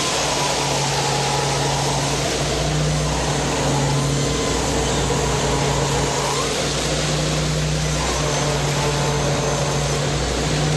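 A motor running steadily: a constant low hum under a loud, even hiss.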